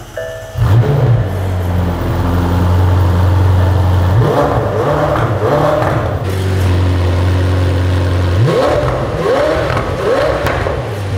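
McLaren Senna's twin-turbo V8 starting up about half a second in and idling, with its revs blipped in quick rising-and-falling sweeps, a few around the middle and three more near the end.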